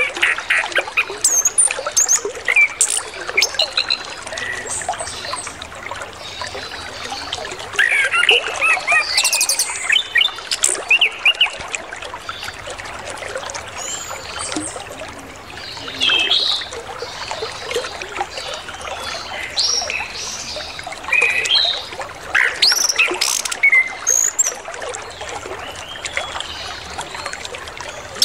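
Orange-headed thrush (anis kembang) singing a varied song of short chirps and whistles, filled with mimicked phrases, over the steady rush of flowing water.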